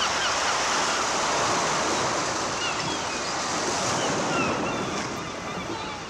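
Steady outdoor rushing noise, like wind or surf, with a few faint high chirps, easing off a little near the end.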